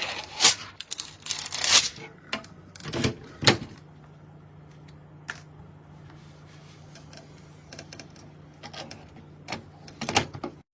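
Sharp clicks and knocks of PC parts being handled and fitted, dense for the first few seconds, then sparse over a low steady hum, with a few more clicks near the end.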